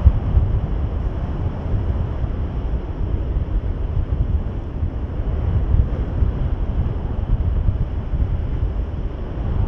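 Wind buffeting the microphone of a camera carried by a soaring paraglider: a steady low rumble that flutters in level throughout.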